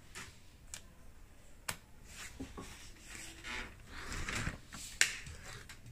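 Handling noises from plugging in and switching on an electric heater: a few sharp clicks, the loudest about five seconds in, with brief rustling between them.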